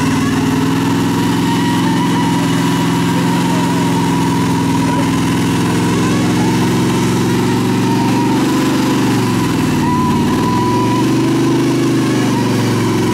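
Engine of a Jeep stuck in deep mud running steadily at raised revs. About ten seconds in, its pitch sags briefly and then recovers.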